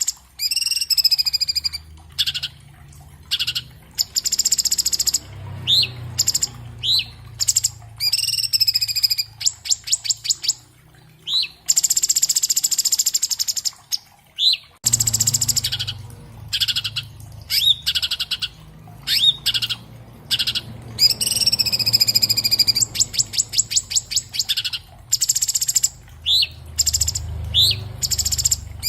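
Orange-bellied leafbird (Cucak Cungkok) singing a fast, varied song of short upslurred whistles, longer warbling phrases and rapid trills, with a low hum underneath.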